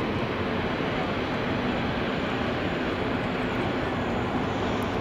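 Airbus A380's four Rolls-Royce Trent 900 turbofans running at low taxi power: a steady, even jet-engine noise that neither rises nor falls.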